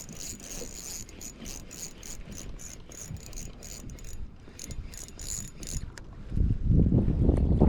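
Fishing reel being cranked, its gears clicking in a quick even rhythm of about four ticks a second with a thin high whine. About six seconds in, the clicking stops and loud wind noise buffets the microphone.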